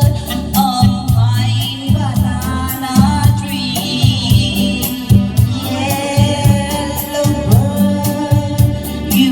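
A song: a sung lead vocal holding long notes with vibrato over a band backing with a steady beat and bass.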